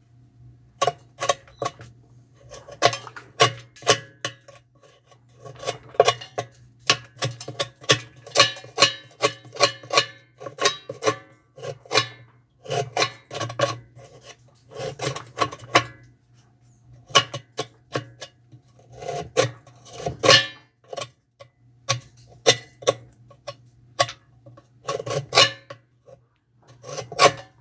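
Hand tools and metal parts scraping, rasping and clinking in irregular clusters during washing machine disassembly, over a steady low hum.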